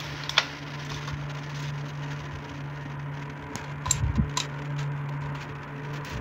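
Clinks of a steel pin spanner on an angle grinder's flange lock nut as a flap disc is fitted and tightened: one sharp click about half a second in and a short cluster of clinks around four seconds in. A steady low hum runs underneath.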